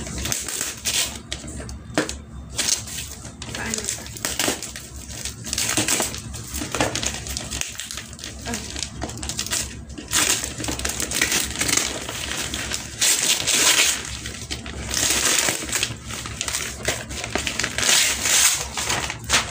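Gift wrapping paper being torn and crumpled off a long wrapped present, in irregular ripping and rustling.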